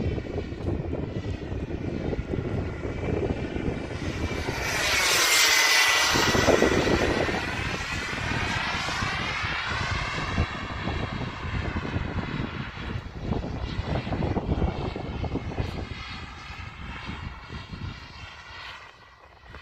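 Turbine-powered RC model jet flying past: the turbine's whine and rush swell to a peak about five seconds in, the high whine falling in pitch as it passes, then ease off as it flies on and fade near the end.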